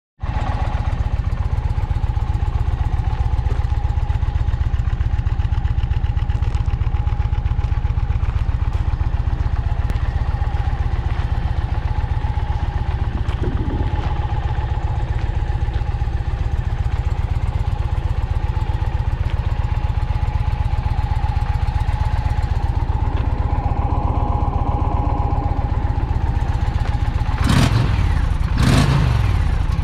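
2021 Indian Challenger Dark Horse's liquid-cooled PowerPlus V-twin idling steadily, then revved twice in quick short throttle blips near the end.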